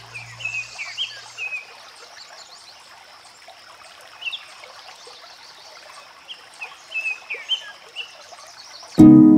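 Shallow stream trickling over pebbles, with birds chirping repeatedly on top. Background music ends in the first second, and loud plucked-string music cuts in near the end.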